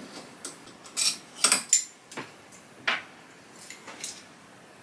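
Small steel parts clicking and clinking as the Autodrive's actuating assembly (lock nuts, set screws, threaded sleeve) is undone by hand with a small tool: about half a dozen separate sharp clicks, one ringing briefly.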